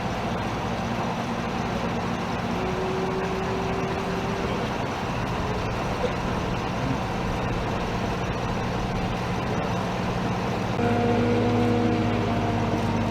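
Vehicle engine idling steadily; about eleven seconds in, a louder engine sound with a different pitch comes in and carries on.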